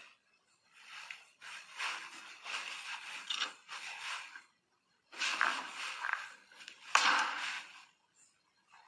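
Wooden tool scraping and rubbing over the surface of a hollow clay form, in uneven stretches of strokes with short pauses between them.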